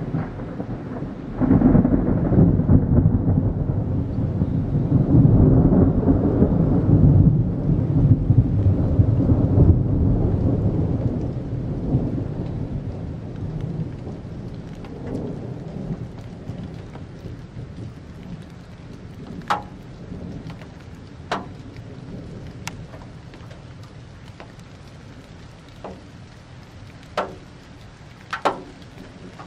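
Thunder: a long, deep rolling peal that breaks in suddenly about a second in, rumbles on for about ten seconds and slowly dies away. In the second half come about six sharp, separate clinks, 'kan!?', which the uploader suspects are hailstones striking something hard.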